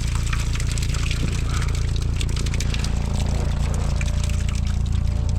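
Steady low engine hum with water splashing and trickling over it, crackling with small clicks.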